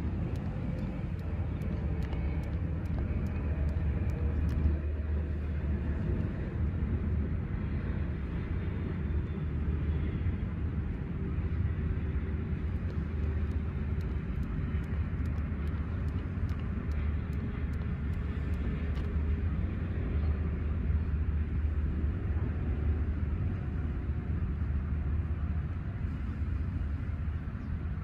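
Steady low outdoor rumble with a faint hum that drifts slightly in pitch and a few scattered faint clicks.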